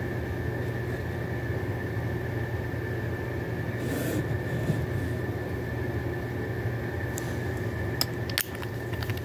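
Steady low hum with a thin high whine, and a few light clicks about eight seconds in as glass nail polish bottles are handled.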